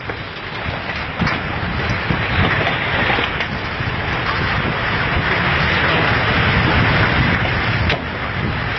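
Loud rushing rumble of earthquake shaking, with a few rattles, building over several seconds and dropping off near the end.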